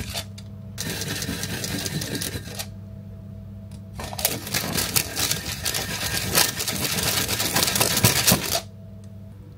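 Upside-down ceramic mug swirled in quick circles over a hot cookie on a parchment-lined metal baking tray, its rim scraping and rattling fast in two spells, the second longer. This is the trick of shaping a freshly baked cookie round.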